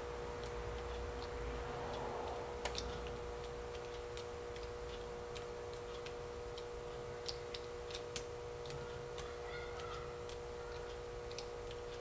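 Faint, irregular small metallic clicks from the pick wires of a Peterson Pro-1 tubular lock pick being pressed down one at a time on a tubular lock; a click marks a binding pin found. A steady hum runs underneath.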